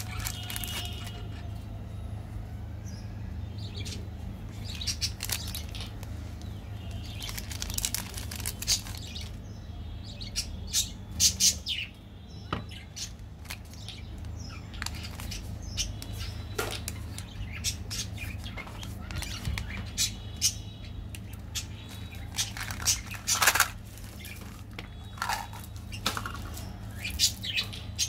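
Plastic candy wrappers crinkling and crackling in irregular bursts as hands handle and open packaged chocolate bars. A steady low hum runs underneath.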